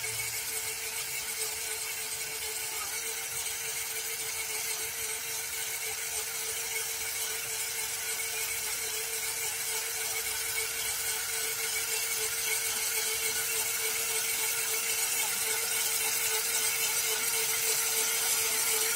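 Krot electric cultivator's motor, run through a frequency converter, running steadily with a high-pitched whine as it tills soil. It grows slightly louder toward the end.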